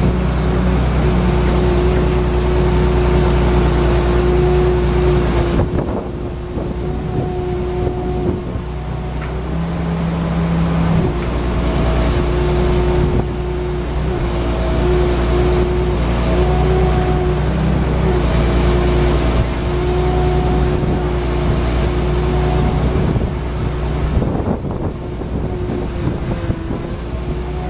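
Wheeled excavator's diesel engine running at a steady speed with a constant hum, briefly dipping in level a couple of times.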